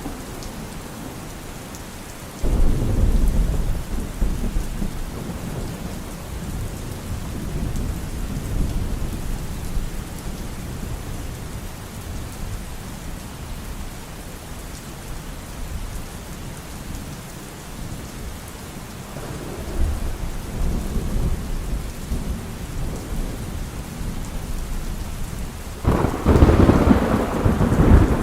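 Thunderstorm: steady rain with rolling thunder. A thunderclap starts suddenly a couple of seconds in and rumbles for several seconds, a softer rumble comes in past the middle, and the loudest crack of thunder comes near the end.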